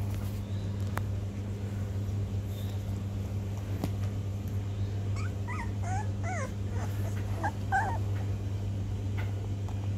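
Two-week-old Rhodesian Ridgeback puppies whimpering: a run of short, high squeaks that bend up and down in pitch, bunched from about halfway through for some three seconds. A steady low hum runs underneath.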